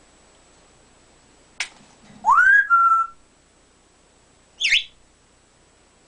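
African grey parrot whistling: a sharp click, then a loud rising whistle that levels off into a held note, and a few seconds later a short high chirp.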